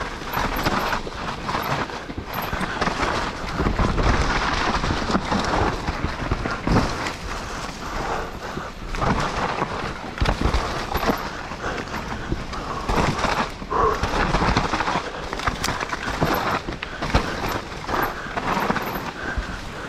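Mountain bike descending a rough dirt trail: tyres rolling and skidding over dirt, stones and roots, with the chain and frame rattling and knocking over every bump.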